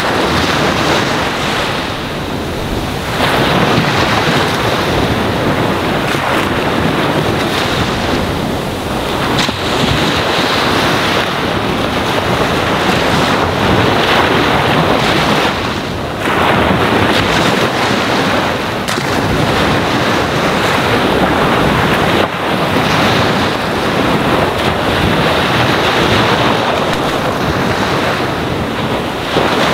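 Ocean waves washing onto a sandy shore: a continuous rushing surf that eases off and surges again every several seconds.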